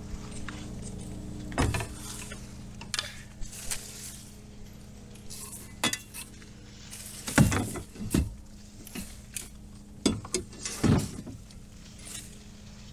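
Scattered knocks and light clinks of a kayak and fishing gear being handled while a largemouth bass is landed. The louder knocks come about a second and a half in, twice around seven to eight seconds, and twice around ten to eleven seconds.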